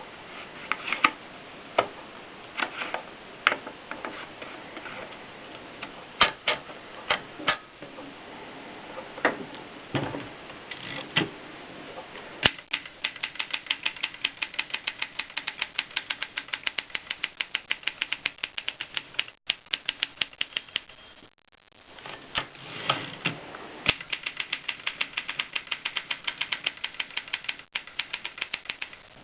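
Rheinmetall typewriter being typed on: scattered single key strikes at first, then fast, even runs of keystrokes, broken by a short pause about two-thirds of the way through.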